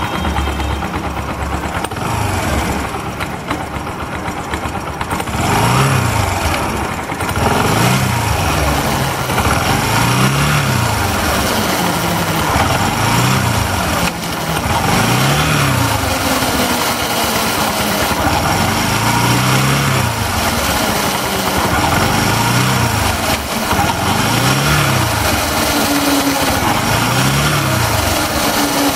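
Bajaj Discover 125 ST's single-cylinder engine revved up and back down about every two and a half seconds, over a mechanical clatter from the drive chain that the owner calls terrible.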